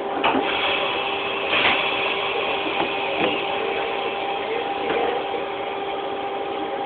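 Inside a Broad Street Line subway car: a steady two-tone hum of the car's equipment over running noise, with a few short clanks in the first few seconds.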